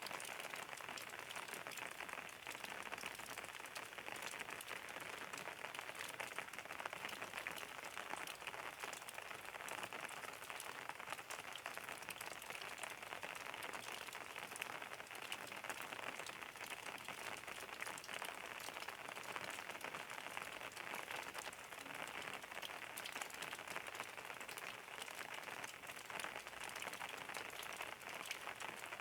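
Steady rain falling, a dense even patter of drops with many small individual ticks.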